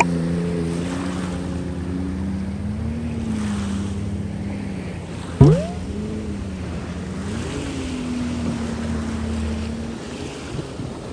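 Watercraft engine running over open water, its hum wavering slightly in pitch, with water splashing and wind on the microphone. About halfway through, a brief loud sound sweeps sharply up in pitch.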